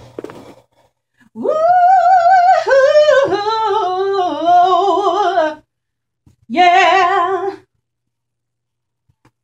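A woman's solo gospel voice, unaccompanied, singing a long vocal run with wavering pitch for about four seconds. A shorter phrase follows a second later.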